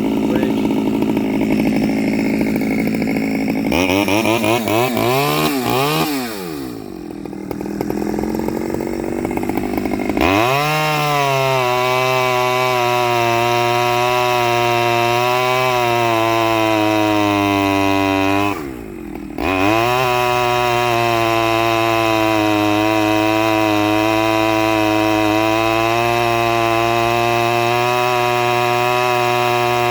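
Stihl 009L chainsaw, a small two-stroke saw still on its standard single-screw carburettor, revving up and down and falling to low revs, then opening up about a third of the way in and holding high revs. About two-thirds of the way through the throttle drops briefly toward idle and the saw picks straight back up to high revs.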